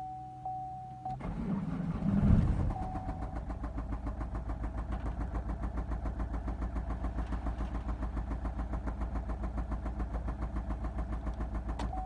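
A Vauxhall Insignia's 2.0 CDTI four-cylinder diesel engine (A20DTH) cranks and starts about a second in, then idles with a loud, steady, rhythmic knock of about seven beats a second. It stops abruptly near the end. The knock is the engine fault under investigation, which the owner puts down to possible oil starvation: a failing oil pump, a bad seal on the oil pickup or poor maintenance.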